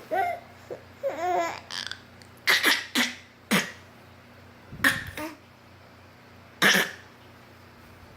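A baby babbles briefly, then gives a series of short, breathy fake coughs with pauses between them, the last few spaced out by a second or two.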